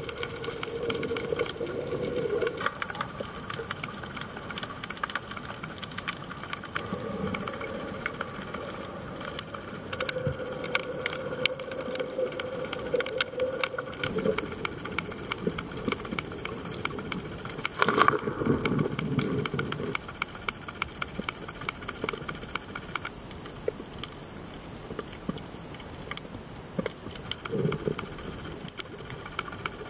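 Underwater ambience heard through a camera housing: a steady hiss with many fine clicks and crackles, and one louder knock about 18 seconds in.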